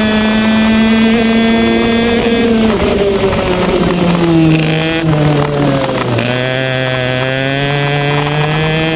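Racing kart engine heard onboard at speed: a high, steady note that falls away about a third of the way in as the driver eases off, then climbs steadily back up under acceleration through the second half.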